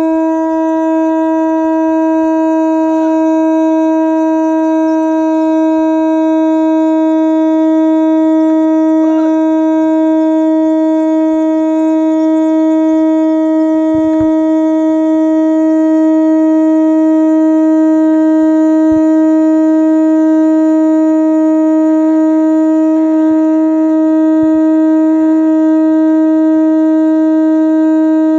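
Conch shell (shankha) blown in one long, steady, loud note, held without a break or change in pitch.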